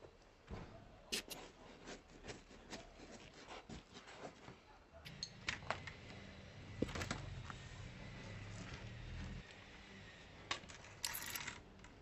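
Irregular light clicks, clinks and knocks of hard objects, with a low hum for a few seconds in the middle and a short scrape near the end.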